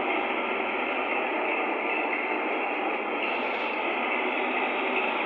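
Window air conditioner unit running with a steady rushing noise.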